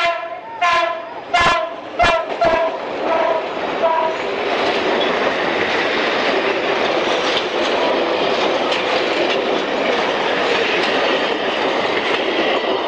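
Passenger train sounding its horn in about five short blasts, then its carriages rolling past close by with a steady rush of wheel and rail noise.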